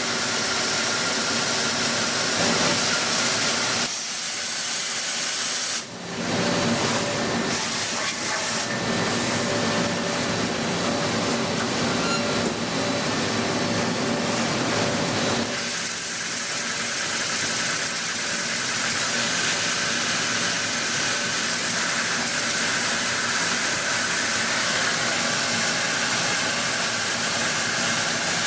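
CNC machine tool running with a steady hiss and a few faint steady tones underneath; the sound changes abruptly about 4, 6 and 16 seconds in.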